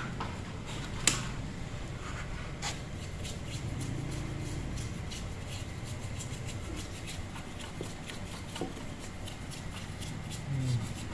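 Rapid light scratching and ticking on metal, with a sharp click about a second in and another near three seconds: the heavily crusted engine block of a carburettor Yamaha Fino being scrubbed clean.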